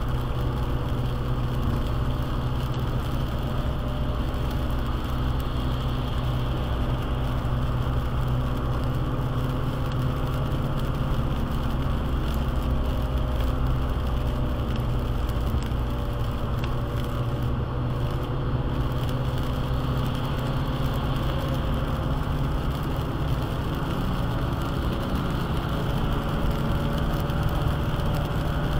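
A car driving at speed on a wet highway, heard from inside the cabin: a steady low drone of engine and tyres on the wet road, with no change throughout.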